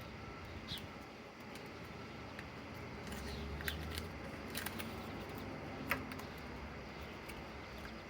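Faint, scattered clicks and light rattles of a cordless hammer drill and its parts being handled, with a few short, high chirps.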